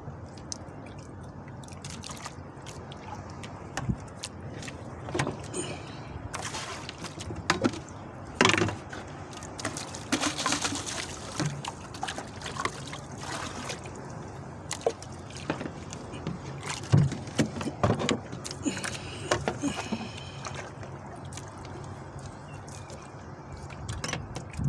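Water lapping and sloshing against a small fishing boat's hull, with scattered close knocks and handling noises from working a fishing line. The knocks and splashes come thickest in two spells, around the middle and again a little later.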